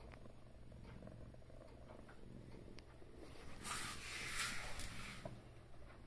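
Domestic cat purring steadily while being stroked, a low continuous rumble. About halfway through, a louder burst of rustling lasts under two seconds.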